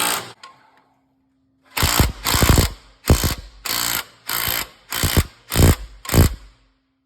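A power tool working a seized valve in a Ford GPW engine, run in about eight short bursts that start about two seconds in, as it tries to free the stuck valve.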